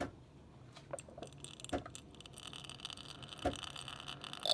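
Bosch Tassimo pod coffee machine starting its brew cycle after being switched on: a few sharp clicks, then a steady hum with hiss from about a second in, and a brief louder burst near the end.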